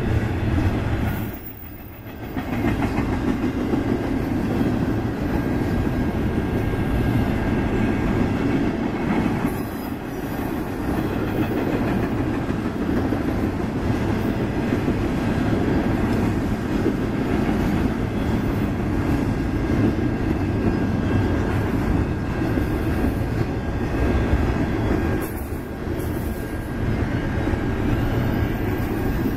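Freight train of double-stack intermodal container well cars rolling past, its wheels running steadily over the rails, with a brief dip in level about two seconds in.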